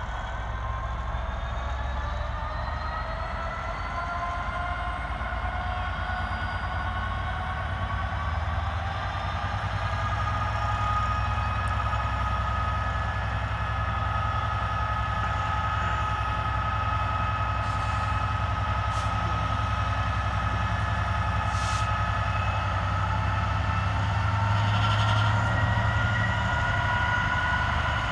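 Class 66 locomotive's two-stroke EMD V12 diesel working hard as it struggles and thrashes away with a 3000-tonne steel train. A deep engine note with whines that rise in pitch over the first ten seconds, hold steady, then rise again near the end, growing louder as the locomotive approaches.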